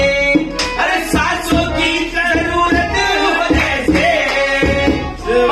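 Live Indian folk-style music: a harmonium carries the tune while a dholak, a two-headed hand drum, keeps a steady beat. Male voices sing along.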